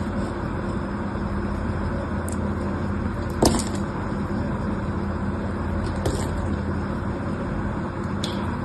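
A blade shaving and carving a bar of soap, with a few sharp cracks as pieces break off, the loudest about three and a half seconds in, over a steady low hum.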